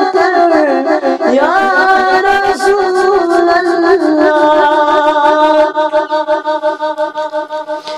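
A man singing a Kashmiri naat (devotional salaam) unaccompanied, in long melismatic phrases. The voice slides down and back up in the first two seconds, then holds long notes that waver in loudness and fade near the end.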